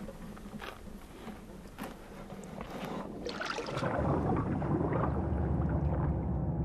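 Water splashing into a lake about three seconds in, followed by a low, muffled rush of bubbling water heard from underwater as fish are tipped in.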